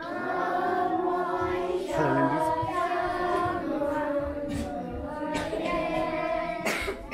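A group of young voices singing together in a sustained, melodic chant, with a few short sharp sounds near the end.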